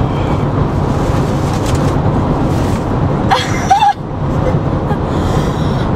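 Steady road and engine noise inside a moving car's cabin, with a short vocal exclamation about three and a half seconds in.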